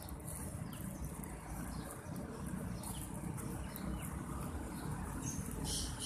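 Outdoor park ambience: a steady low rumble with faint, scattered bird chirps, and a short hiss near the end.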